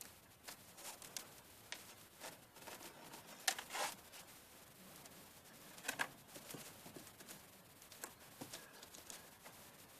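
Faint scuffs, scrapes and clicks of someone climbing on a crumbling, snow-covered stone wall, with sharper knocks about three and a half and six seconds in.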